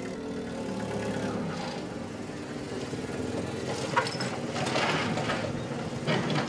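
Forklift engine running, with a sharp click about four seconds in.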